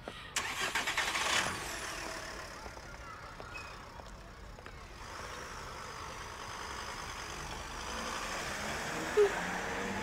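A car engine starts with a loud, rattling burst and then runs steadily. A brief, sharp blip comes about nine seconds in.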